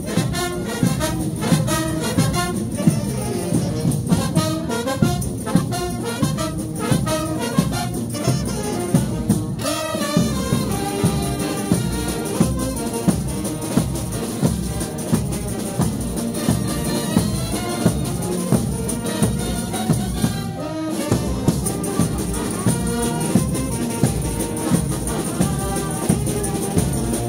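Frevo brass band playing: trumpets and trombones over a fast, steady drumbeat, with a short break about three-quarters of the way through.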